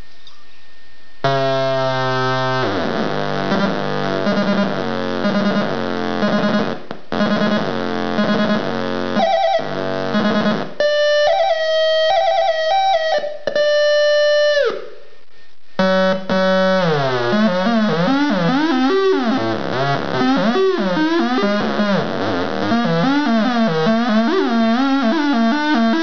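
Homemade CD4093 NAND-gate oscillator synth making harsh, buzzy electronic tones that start and cut off abruptly. Mid-way the pitch jumps in steps, and in the second half it warbles up and down in wavering glides.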